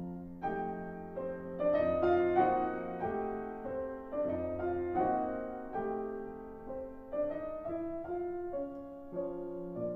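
Background piano music: a slow, gentle melody of single notes over held chords.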